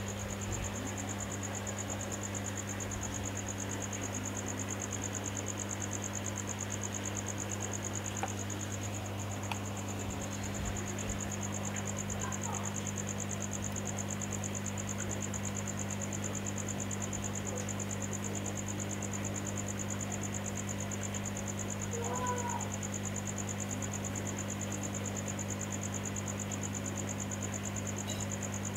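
Hot air rework station blowing steadily on a laptop motherboard to melt the solder under a MOSFET for removal, with a low steady hum. A steady high, fast-pulsing trill runs over it.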